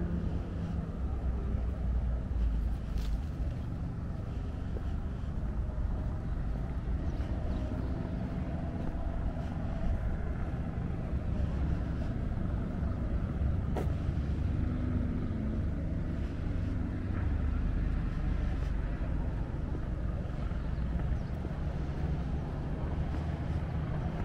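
Outdoor street ambience: a steady low rumble, with a single sharp click about fourteen seconds in.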